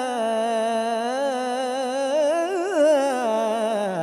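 A man reciting the Quran in tajwid style, holding the long vowel of 'lā' from 'lā uqsimu bi-hādhā al-balad' (Surat al-Balad) as one unbroken melismatic line. The pitch wavers through ornaments, climbs to a peak about three seconds in, then falls away and breaks off near the end.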